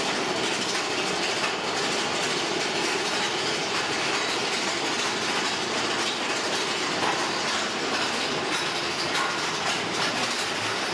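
Big Thunder Mountain Railroad mine-train roller coaster running along its track, a steady rattling rush heard from on board the front car.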